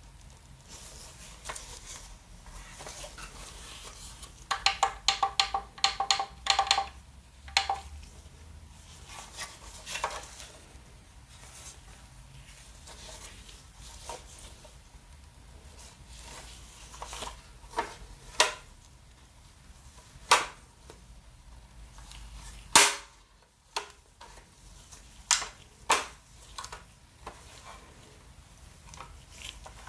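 Plastic casing and hinged antennas of a Huawei WiFi AX3 router clicking and tapping as it is handled in gloved hands. A quick run of clicks comes about five seconds in, then single sharp clicks, the loudest about three-quarters of the way through.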